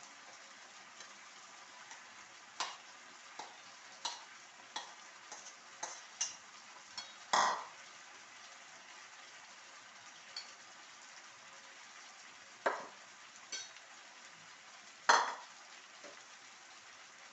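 Food frying with a steady sizzle while it is stirred in a pot: a spoon knocks and scrapes against the pot about a dozen times at uneven intervals, loudest about seven, twelve and fifteen seconds in.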